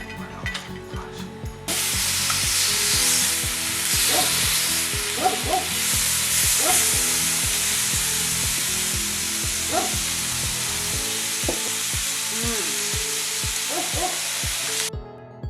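Meat sizzling on a Korean barbecue grill, a loud steady hiss that starts suddenly about two seconds in and cuts off just before the end. Background music with a steady beat plays under it.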